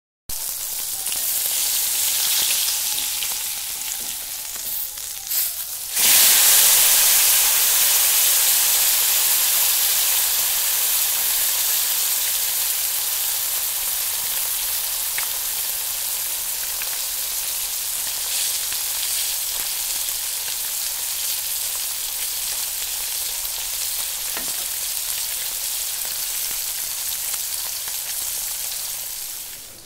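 Turmeric-coated fish pieces shallow-frying in hot oil in a metal wok, a steady sizzle. It jumps louder about six seconds in and then slowly eases off.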